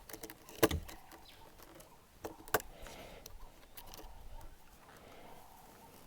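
Small sharp clicks and taps from hand work on a smartphone being reassembled: one loud click about half a second in, two more around two and a half seconds in, over faint handling rustle.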